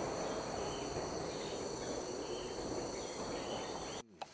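Tropical forest insects, cicadas and crickets, droning in a steady high chorus of several held whines over a low, even background noise. The sound cuts off suddenly about four seconds in.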